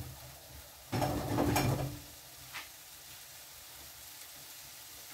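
Vegetable zazharka frying faintly in a pan, with a spoon stirring and scraping through it for about a second, starting about a second in, and a light click shortly after.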